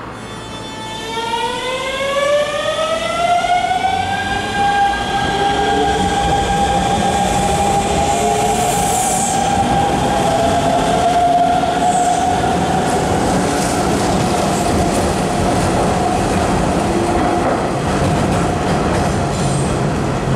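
Hanshin 5500-series electric commuter train pulling out of a station. The inverter-driven motors whine in a stack of tones that climb in pitch over the first few seconds as it accelerates, then settle into one steady tone. Wheel-and-rail rumble runs under it as the cars pass.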